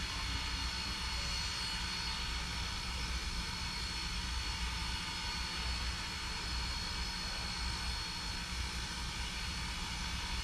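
Norfolk & Western 4-8-0 steam locomotive No. 475 standing idle: a steady hiss with a constant high whine over a low, fluttering rumble.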